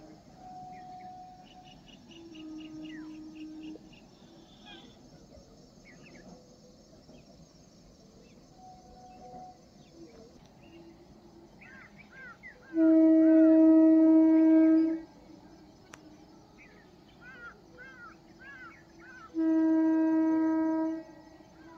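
Two long horn blasts, each held steady on one pitch: the first lasts about two seconds, and a shorter one comes near the end. Birds chirp in the background.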